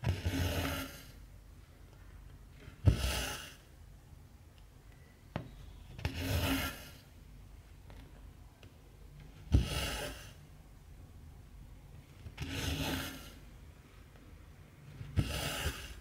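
Cotton embroidery thread drawn through 14-count cross-stitch fabric, six rasping pulls about every three seconds, several opening with a sharp tick.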